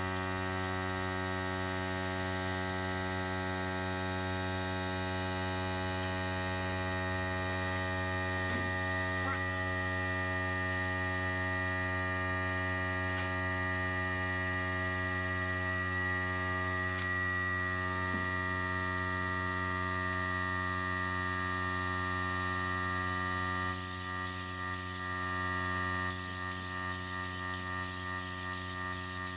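A steady electrical hum throughout. Near the end, a schutz-type spray gun on a compressed-air line starts spraying coating from its can with a hiss: one short spurt, then a run of rapid short bursts, about four a second.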